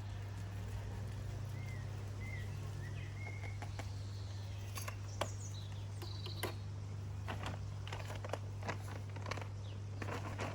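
Peanuts being shaken out of a nearly empty bag into a tub: scattered clicks and short rustles from about halfway through, over a steady low hum. A few faint bird chirps sound near the start.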